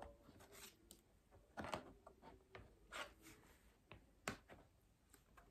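Faint, scattered clicks and taps of plastic corner-rack parts, dark plastic shelf panels knocking against blue plastic frames, as they are handled and fitted together.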